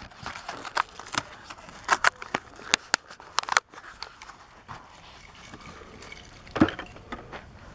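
Stiff plastic blister packaging and card snapping and crackling as they are pried apart by hand to free a die-cast toy car, about a dozen sharp cracks in the first few seconds, then softer rustling and a single thump near the end.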